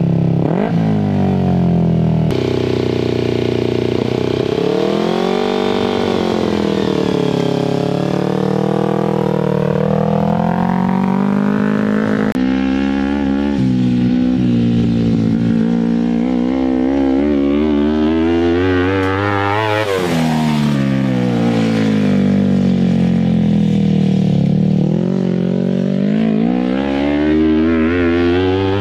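Off-road buggy's engine running under load as it is driven across a field, its pitch climbing and falling again and again as it accelerates and eases off, with one sharp rise and fall about two thirds of the way through.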